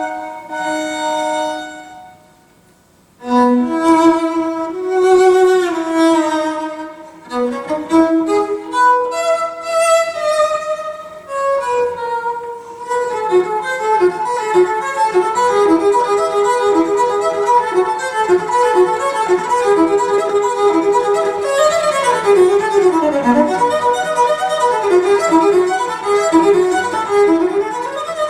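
Violin music played back over a high-end stereo system through Wilson Benesch Resolution loudspeakers. It opens with slow held notes and a short break about two seconds in, then moves to fast running passages from about halfway through.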